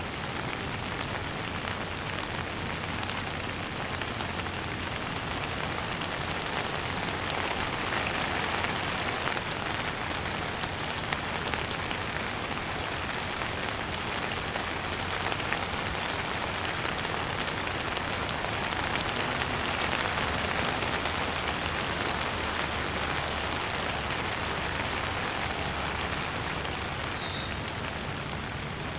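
Steady rainfall on a surface: an even hiss of rain with scattered individual drops, swelling slightly in strength twice.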